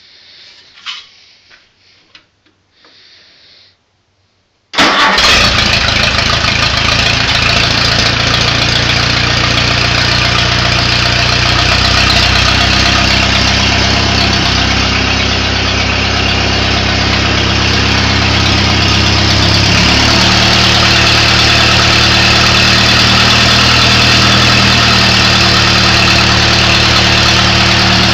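Massey-Harris Pacer tractor engine cold-started: a few faint tapping and rubbing sounds, then nearly five seconds in the engine comes in at once, with no cranking heard, and runs steadily, its speed shifting slightly a couple of times as it settles into idle.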